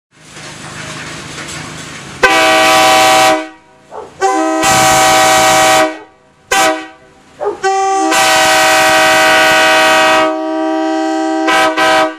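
Multi-chime locomotive air horn blown in a series of blasts: a blast of about a second, a longer one, two short toots, then a long blast that drops in level and swells again near the end. Each blast sounds several notes at once as a chord, and a hiss comes before the first blast.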